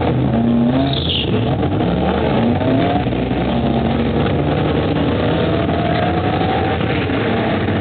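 1998 BMW E36 M3's 3.2-litre straight-six launching down the drag strip under full throttle, its note rising in pitch again and again as it runs up through the gears. A steady engine drone from another car idling nearby runs underneath.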